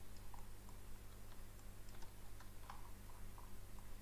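Faint, irregular clicking of a computer keyboard and mouse, over a steady low hum.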